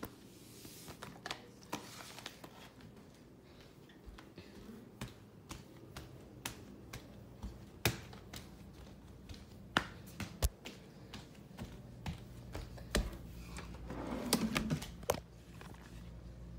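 Scattered light clicks and taps of handling, irregularly spaced, from a hand on a plastic DVD case and the camera being moved about, with a brief louder rustle about fourteen seconds in.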